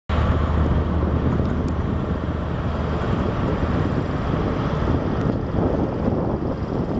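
InterCity 125 (HST) diesel power car running under power as the train pulls out and draws nearer: a loud, steady low drone.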